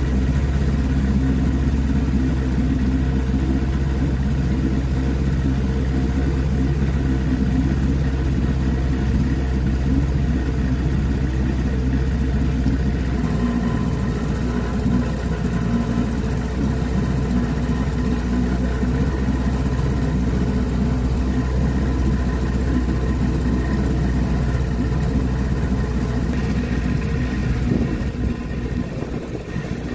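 Boat motor running steadily under way, its note changing slightly about halfway through.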